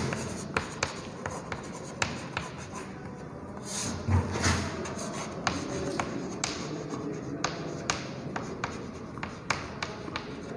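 Chalk writing on a chalkboard: a quick run of sharp taps and short scratchy strokes as letters are written, with a louder stroke about four seconds in.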